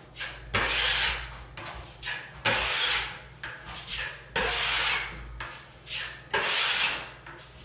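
Steel drywall taping knife scraping along drywall, spreading joint compound over screw heads and then scraping it off. It comes as a run of scraping strokes, about one every second or two, some long and some short.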